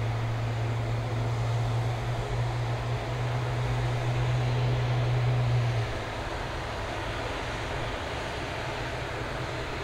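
Airport ramp noise around an Airbus A350-900: a steady low hum that stops suddenly about six seconds in, over a constant rushing noise.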